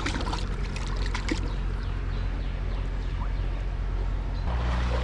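Creek water trickling and splashing, with a few sharp clicks and splashes in the first second and a half over a steady low rumble that gets louder near the end.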